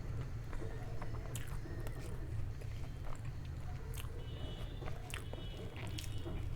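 Close-miked eating: biting and chewing food with scattered crisp clicks, over a steady low hum.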